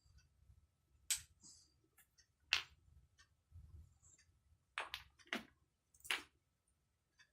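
Wooden toy blocks knocking together as a child handles them: several sharp clacks at irregular intervals.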